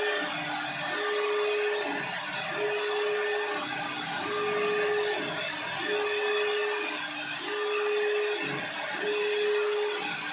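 CNC wood router running: a steady hiss with a motor whine that holds for about a second, dips lower and comes back, repeating roughly every 1.2 s.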